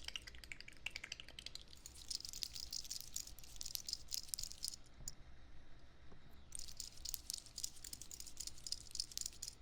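Dense, crisp crackling and clicking close to the microphone, in two stretches with a pause of about a second and a half in the middle.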